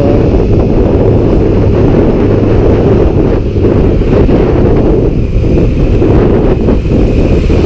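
Heavy wind buffeting on the camera's microphone while riding a Yamaha MX 125 scooter at road speed, with a steady low engine hum underneath.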